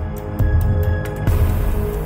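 Background music with sustained tones over a low pulsing beat; a rushing noise joins it a little past halfway.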